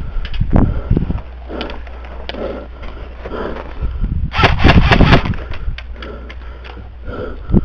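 Airsoft gunfire: about four seconds in, a loud rapid string of five or six sharp cracks lasting about a second, over scattered rustling of footsteps in dry grass and crusted snow.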